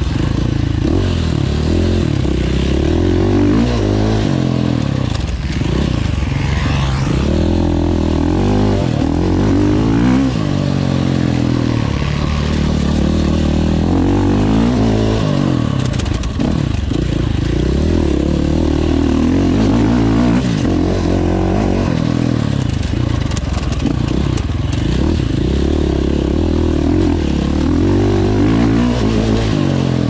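Enduro motorcycle engine ridden hard off-road, its pitch climbing and dropping back over and over as the throttle is opened and closed, with some rattling of the bike over rough ground.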